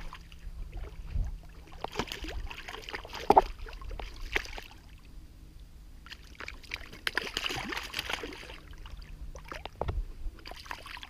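A hooked rainbow trout thrashing and splashing in shallow water as it is landed, in several bursts of splashing, with one sharp splash about three seconds in.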